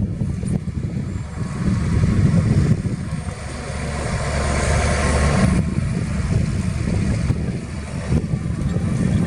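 Diesel engine of heavy earthmoving machinery running with a dense low rumble, growing louder for a couple of seconds near the middle.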